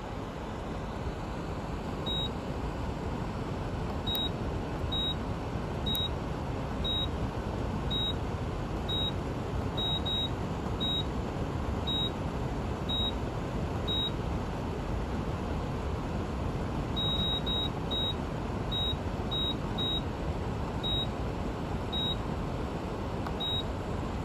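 Meaco dehumidifier's fan running steadily at full speed, stuck there because the control board has failed. Short high beeps sound about once a second, now and then two in quick succession, with a pause of a few seconds past the middle.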